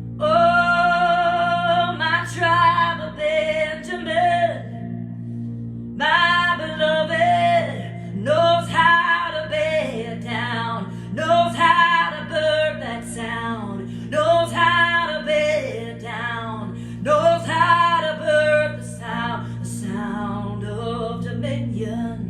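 A high voice singing a chant in about seven long phrases with vibrato, in the style of a Native American chant, over a steady low instrumental drone.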